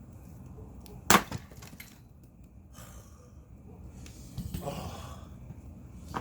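A single loud, sharp axe blow into a firewood log about a second in, as the log is split. A quieter, rougher sound lasting about a second follows some three seconds later.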